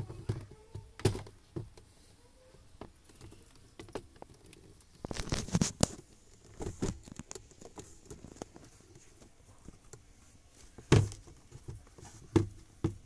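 Plastic glovebox of a Toyota Hilux Revo being handled and fitted back into the dashboard: scattered plastic knocks and clicks, with the paper manuals inside rustling about halfway through. The loudest knock comes near the end.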